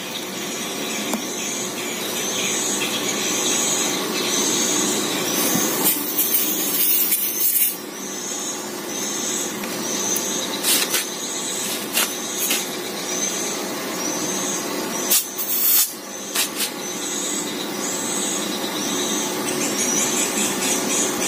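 Kenmaster 12V mini portable air compressor running steadily while it pumps up a car tyre through a hose on the valve, with a few short clicks and knocks partway through.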